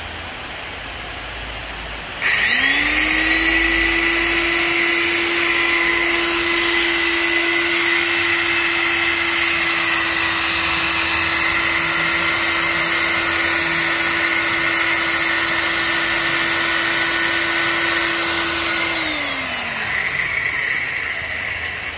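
Shibaura 13 A, 100 V electric power tool switched on about two seconds in: the motor spins up quickly to a steady high whine, runs for about sixteen seconds on test, then is switched off and winds down with a falling pitch.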